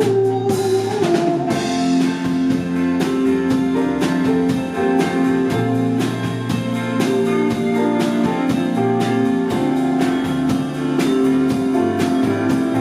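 Instrumental break of a band song: guitar playing over a drum kit keeping a steady beat.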